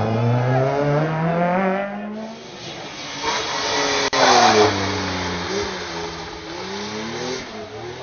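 Two rally cars' engines accelerating hard, one after the other. The first revs up with rising pitch. After a break, the second passes loudly just after a sharp click about four seconds in, then pulls away with the pitch rising and dropping through gear changes.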